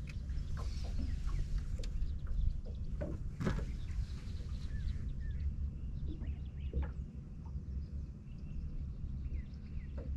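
Outdoor lake ambience: an uneven low rumble of wind on the microphone, with scattered short bird chirps and a few faint clicks.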